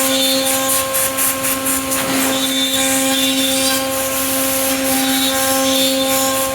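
C.R. Onsrud 96C12 CNC router running: a steady, unchanging spindle whine with its overtones over a loud rushing noise of cutting and air.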